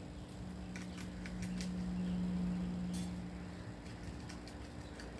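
Sandhill crane bills pecking at pecans on a hard surface: scattered sharp clicks and taps in small clusters, over a steady low hum.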